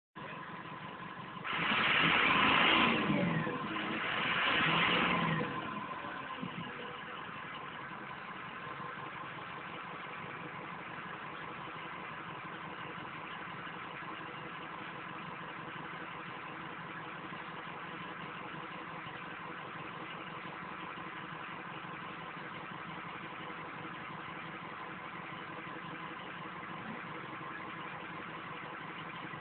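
Ford diesel truck engine revved twice in quick succession, about two and four seconds in, then idling steadily.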